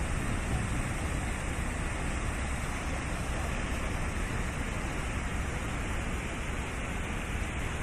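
Water from a wide plaza fountain spilling over a long ledge in a steady rush.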